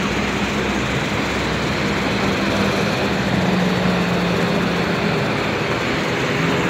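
A steady engine drone with a low hum, over a constant wash of noise.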